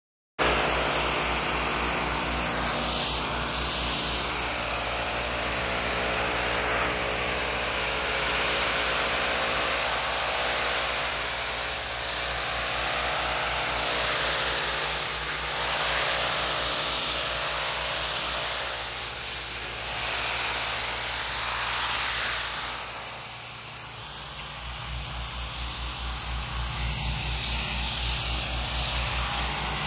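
Pressure washer running steadily, with water hissing from a twin-nozzle wand onto concrete. It goes briefly quieter about three-quarters of the way through.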